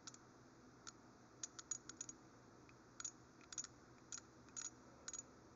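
SK X-Frame ratcheting box-end wrench ratcheting on a fastener in tiny back-and-forth movements: faint, irregular clicks of its fine-tooth mechanism, singly and in quick runs of two or three.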